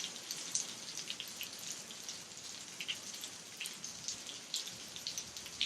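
Light, irregular clicks and ticks over a faint hiss as a hard plastic crankbait is handled and turned in the hand.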